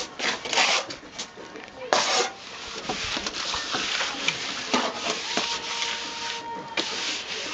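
Steel trowel scraping and smoothing wet cement render onto a stone wall: several separate scraping strokes, then a continuous rough scraping.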